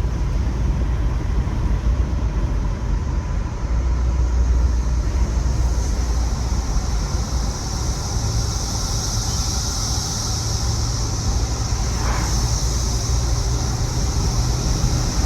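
Chorus of periodical cicadas: a steady high-pitched drone that grows louder about six seconds in. It is heard from a moving car over a low rumble of tyres and engine.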